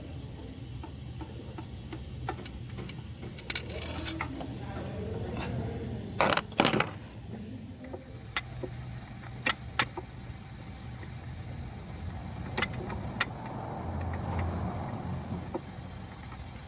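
Scattered metallic clicks and clinks of hand tools working on a car engine, with two louder clacks about six seconds in, over a steady low hum.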